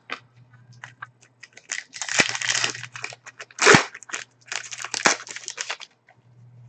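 A trading-card pack wrapper being torn open and crinkled, in several short bursts of crackling and rustling over a faint low hum.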